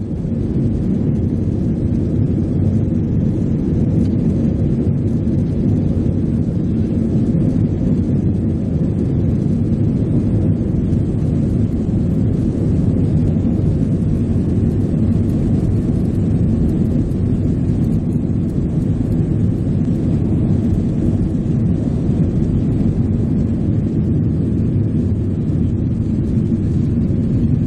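Airliner's jet engines running with a steady, loud, deep rumble.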